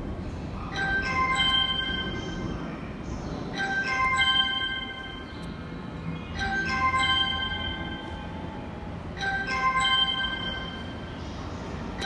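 Station platform train-approach chime: a short run of bell-like notes repeating about every three seconds, four times, warning that a train is about to pass through without stopping. A steady low rumble lies underneath.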